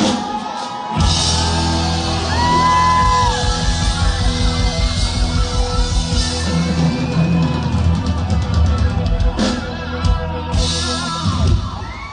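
Live rock band playing an instrumental passage, with drum kit and sustained electric guitar notes over a steady bass.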